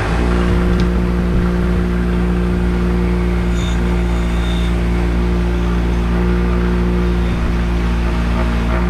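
Bench grinder with a brass wire wheel switched on at the start, then running with a steady motor hum and a hiss as the cast aluminum hammer handle is brushed against the spinning brass bristles to clean it.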